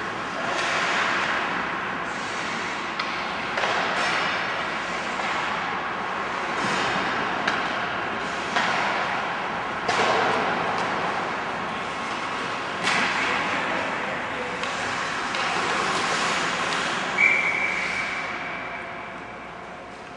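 Ice hockey play: skates scraping and carving the ice with sharp clacks of sticks and puck against each other and the boards, then a referee's whistle blows about seventeen seconds in, one steady high note held for about two seconds.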